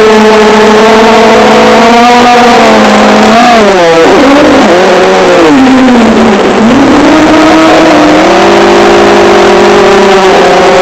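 FPV drone's electric motors and propellers whining, loud, picked up by the onboard camera's microphone. The pitch holds steady, dips and wavers around the middle as motor speed drops, then climbs back and holds.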